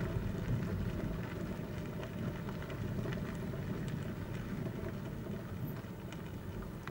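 A vehicle running on a gravel road, heard from inside: a steady low rumble with a faint scattered crackle of gravel under the tyres.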